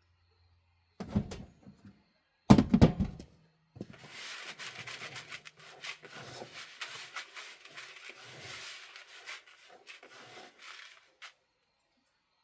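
Two heavy thumps about one and two and a half seconds in, then several seconds of rustling and rattling, with many small clicks, as things are handled.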